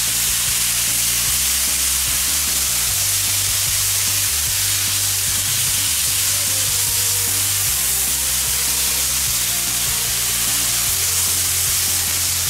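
Lamb fillets and onions sizzling steadily on a searing-hot steel fire plate over a wood fire. Background music with a low bass line plays underneath.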